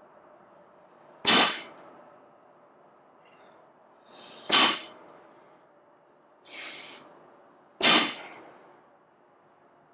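Loaded barbell's plates touching down on the floor during deadlift reps: three sharp clanks about every three seconds, with a softer sound between the second and third.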